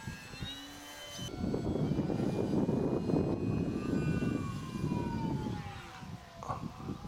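Electric motor and propeller of a Multiplex Park Master 3D model aerobatic plane whining in flight, the pitch sliding down over a few seconds and rising again near the end as the throttle changes. Wind buffets the microphone with a low rumble throughout.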